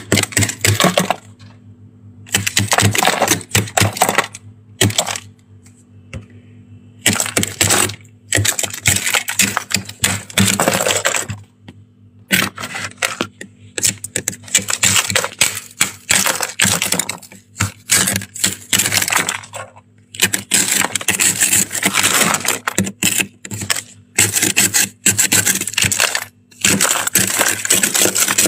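Thick freezer frost being scraped off the wall with a white plastic scraper: repeated crunchy, crackling strokes, each a second or two long, with short pauses between.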